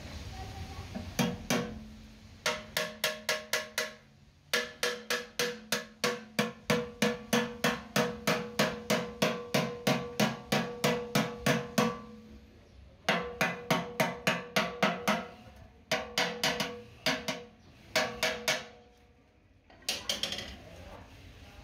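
A small hammer tapping rapidly on the welded seam of a steel motorcycle fuel tank, about three to four ringing metallic strikes a second. It comes in several runs with short pauses between them.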